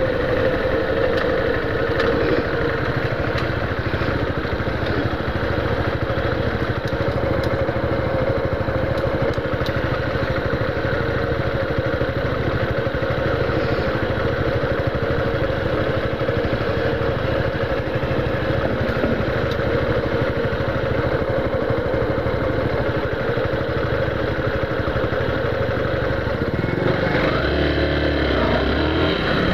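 Yamaha Factor 150's single-cylinder four-stroke engine idling steadily, with its note shifting and gliding in pitch about two seconds before the end.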